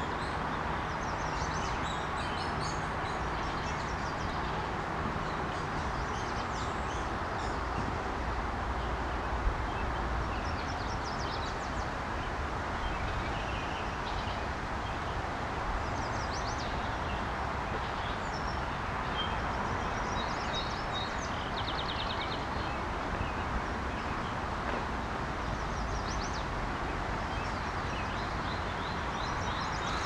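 Steady rush of a flowing river, with small birds chirping now and then above it.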